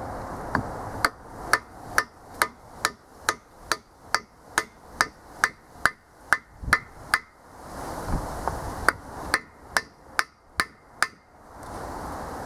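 Hammer blows on a freeze plug driver, seating an expansion plug in a small block Chevy 350's block. A steady run of sharp knocks, about two a second, stops for a second or so, then a shorter run follows.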